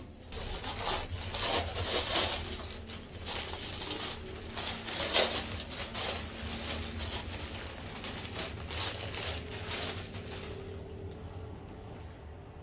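Plastic packaging rustling and crinkling as clothes are handled and unwrapped, dense and irregular, settling down about two seconds before the end.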